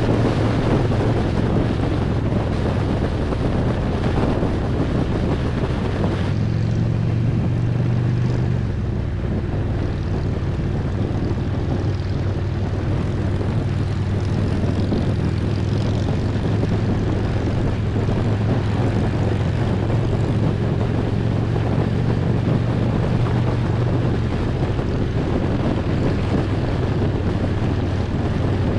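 Harley-Davidson Road Glide's V-twin engine running steadily at cruising speed, with wind rushing over the microphone. The engine note rises a little about six seconds in and settles back a few seconds later.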